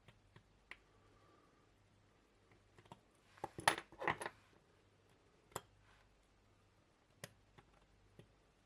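Faint, scattered small metallic clicks and clinks of watchmaker's tools on tiny watch parts as the movement's second bridge is taken off, with a brief flurry of clinks around three and a half to four seconds in.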